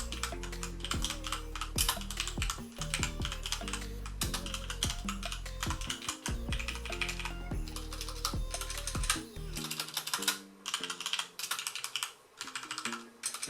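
Typing on a Gigabyte AORUS K7 keyboard: a fast, continuous run of key clicks over background music whose bass drops out about two-thirds of the way through.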